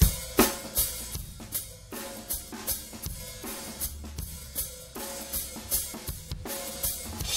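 Multitrack recording of an acoustic drum kit playing a steady beat, with kick, snare, hi-hats and cymbals at about three hits a second. The kit is heard with its room echo.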